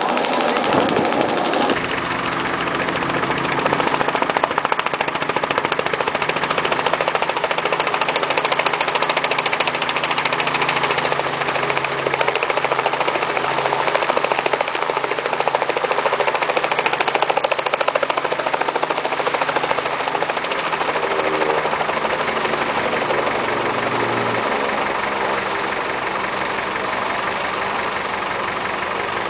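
Light two-blade helicopter running close by on and just above a runway, a steady engine-and-rotor drone. A low hum in it drops away a little after two-thirds of the way through.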